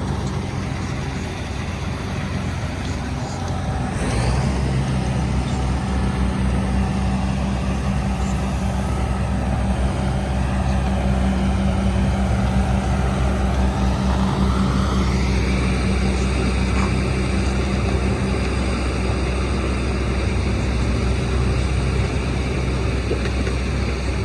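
Heavy diesel machinery running steadily under load as a crawler excavator tows a truck crane, getting louder about four seconds in.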